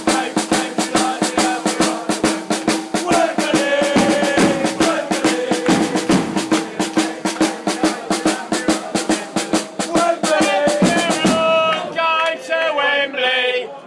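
Fans' snare drum and bass drum beating a fast, steady rhythm under singing voices. About eleven and a half seconds in the drumming stops and the crowd chants on without it.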